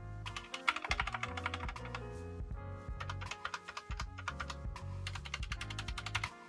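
Typing on a GiM SK64 60% mechanical keyboard with hot-swap Gateron optical switches: quick runs of key clicks in about three bursts, over background music.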